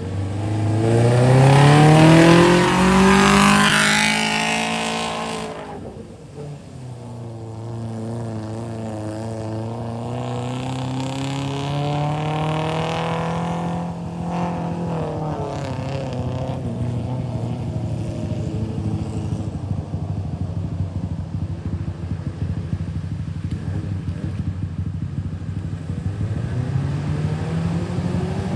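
Off-road vehicle engine revving under load. Its pitch climbs hard for about five seconds and is loudest there, then drops suddenly. It climbs slowly again, eases back to a steady run, and rises once more near the end.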